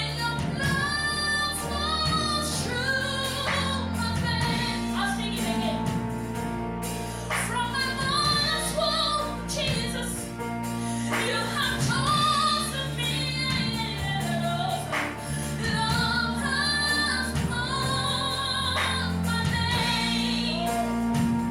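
A woman singing a worship song over band accompaniment with steady, sustained low notes.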